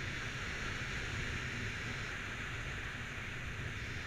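Wind rushing over the microphone of a paraglider pilot's on-body camera in flight: a steady hiss of airflow with an unsteady low rumble of buffeting.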